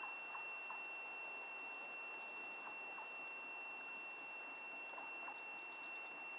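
Faint outdoor ambience: a low steady hiss with a constant high-pitched whine, scattered short faint chirps, and two brief runs of high ticks, one about two and a half seconds in and another near the end.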